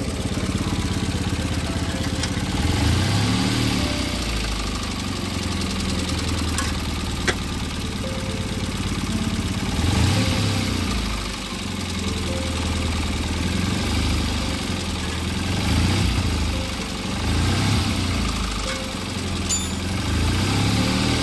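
Tata Nano's two-cylinder petrol engine running, blipped briefly several times, with a sharp click about seven seconds in. With the silencer gasket bolts tightened, the exhaust sounds normal and the abnormal noise from the gasket is gone.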